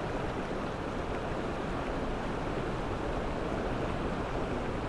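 Fast-flowing river water rushing and splashing over a rocky bed, a steady noise.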